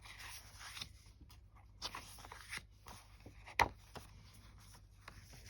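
Sheets of craft paper being handled and leafed through: soft rustling with a few light taps, and one sharper click about three and a half seconds in.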